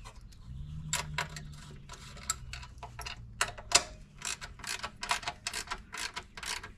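Ratchet wrench with a 10 mm socket clicking in short irregular runs as it tightens the nuts on the battery hold-down.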